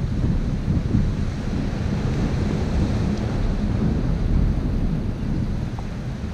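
Wind buffeting the microphone in a steady low rumble, over the hiss of surf breaking against rocks.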